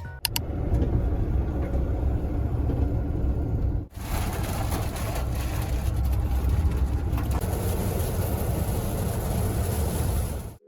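Low, steady rumble of a moving vehicle, broken by a sudden cut about four seconds in, after which the same rumble continues with more hiss on top.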